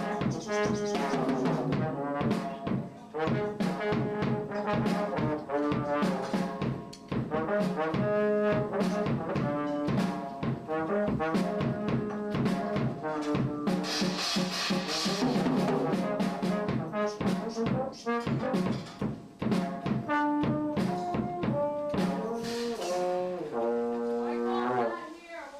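Music with brass-sounding melody notes changing every fraction of a second over frequent short percussive hits.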